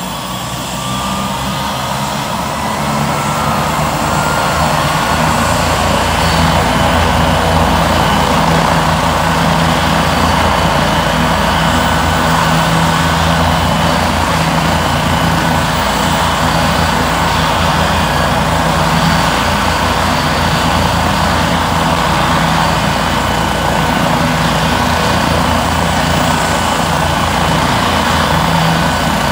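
Turbine helicopter's engine and rotors running loudly. The sound swells over the first few seconds, then holds steady, with a faint rising whine near the start.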